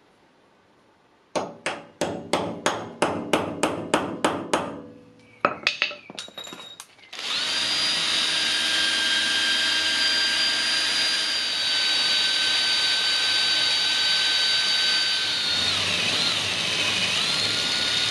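A hammer strikes a center punch about a dozen times, roughly three blows a second, marking a broken bolt stub for drilling. After a few short clicks, a Metabo cordless drill runs steadily for about ten seconds, drilling into the broken bolt to remove it, its pitch wavering briefly near the end as the bit loads.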